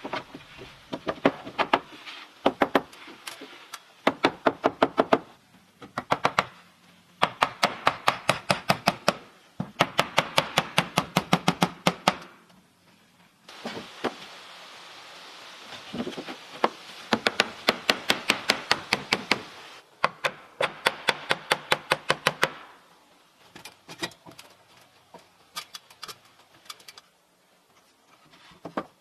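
A hand tool striking wood in quick runs of about four to five blows a second, each run lasting a few seconds with short pauses between. Around the middle there is a stretch of steady noise without blows.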